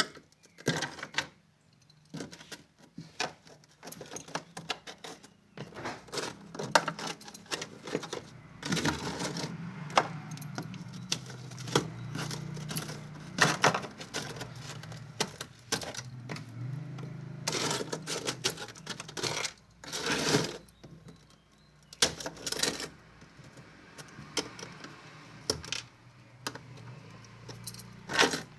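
Hard objects clattering and knocking against each other in many separate sharp strikes and rattles, with a low hum under the middle stretch.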